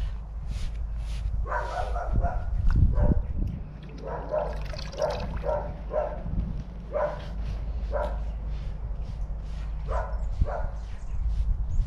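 A dog barking repeatedly in short single or double barks, about a dozen in all, spread over several seconds. At the start, a dye-soaked sponge is rubbed over seat cloth, and there are wet sounds of a gloved hand in a bucket of dye liquid.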